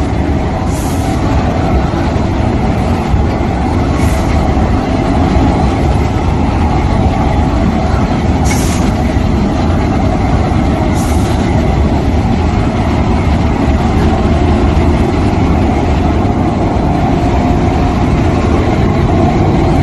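Industrial machinery running steadily and loudly, likely a heat treatment furnace line in operation, with four short high hisses spread through the first half.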